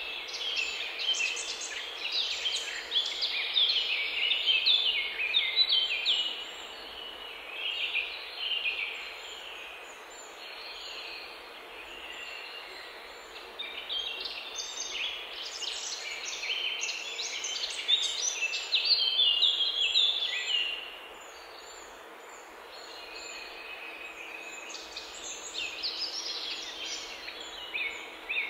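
Several songbirds singing and chirping over one another in a busy chorus of quick, high notes. It thins out twice, about a third of the way in and again about three quarters of the way in.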